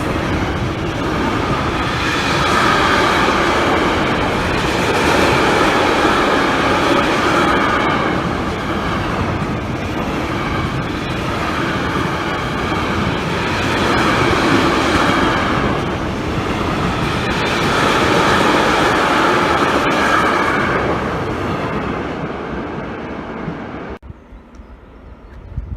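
A train passing close by: wheels running over the rails in a steady, loud rolling noise that swells and fades every three to four seconds as the cars go by. It cuts off abruptly about two seconds before the end.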